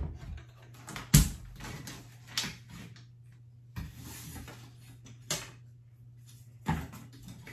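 A nail gun firing single shots into floor trim, six sharp knocks about a second and a half apart, the second one the loudest.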